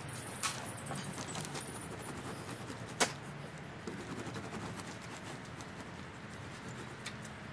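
Palette knife scraping and dabbing paint on a canvas: a run of light scratchy strokes and taps, with a sharp click about three seconds in.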